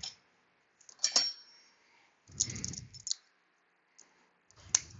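Metal hand tools and parts clinking and clicking in a few separate strikes, one about a second in with a short metallic ring, another near the end, with a brief rustle of handling between them.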